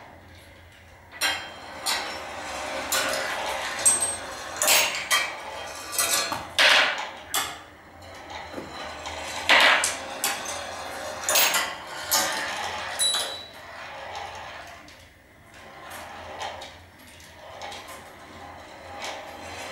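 Glass marbles rolling along the brass wire tracks of a marble run, with a steady rolling rustle and irregular sharp clinks and knocks as they hit the rails and metal parts, a few of them ringing briefly at a high pitch. The clinks come thickest in the first half and thin out toward the end.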